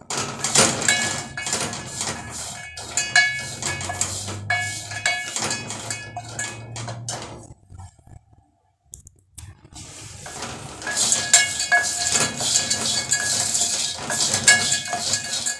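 Groundnuts being stirred with a wooden spoon in a dry aluminium pot for roasting: rapid rattling and scraping, the pot ringing with the knocks. The stirring stops for about two seconds past the middle, then starts again.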